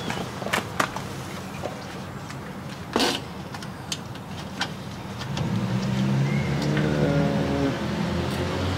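Light clanks and taps of an aluminium tailgate trim panel knocking against the tailgate as it is handled and fitted, the sharpest about three seconds in. From about five seconds in, a car engine's hum grows louder.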